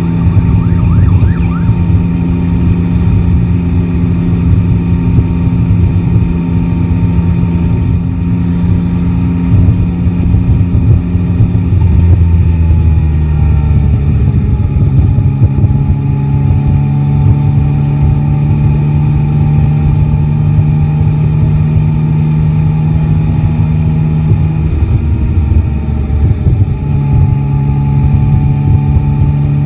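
Yamaha Tracer 9 GT's three-cylinder engine running under way with a steady drone. Its pitch steps down about twelve seconds in and shifts again briefly later.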